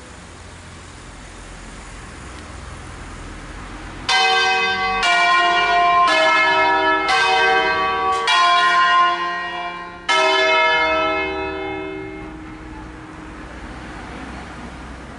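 Six church bells cast by Crespi of Crema in 1885, tuned in D-flat, rung in the Brescian concerto style, playing a funeral concerto. Starting about four seconds in, seven strikes of different bells come about a second apart, two of them almost together near the middle, and the last is left to ring out and fade.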